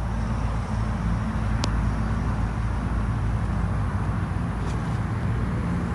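Steady low engine rumble with an even hum, and two faint clicks.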